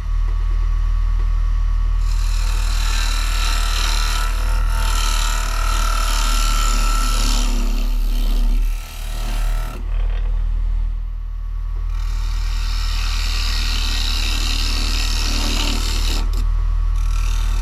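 Rockler 10x18 wood lathe running with a steady hum while a Rikon carbide turning tool scrapes into the spinning maple bowl blank. The cutting comes in long stretches, with a break of about two seconds around ten seconds in when only the lathe's hum is left.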